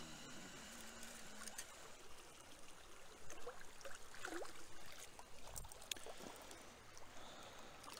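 Shallow creek water running and trickling, faint, with splashing and a few sharp knocks between about three and six seconds in as a hand pulls a folding shovel out of the streambed and lifts it from the water.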